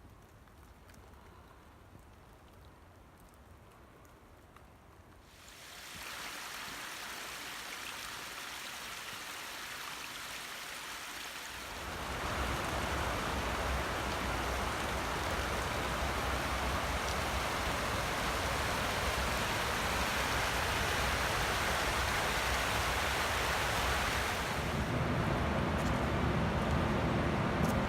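Rushing water, a steady hiss without any clear tone. It is faint at first, starts abruptly about six seconds in, and grows louder in two more sudden steps, at around twelve seconds and near the end.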